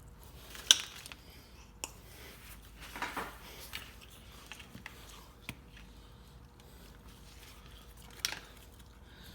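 Hand tools clicking and knocking while working on the car's suspension: a few separate sharp clicks, the loudest about a second in and another near the end, over a low steady hum.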